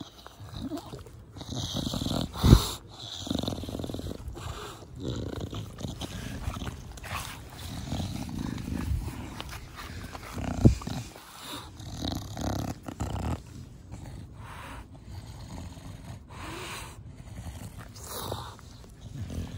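An English bulldog snorting and snuffling as it breathes close to the microphone: the noisy breathing of a short-nosed (brachycephalic) breed. Two short, louder bumps come about two and a half seconds in and again about eleven seconds in.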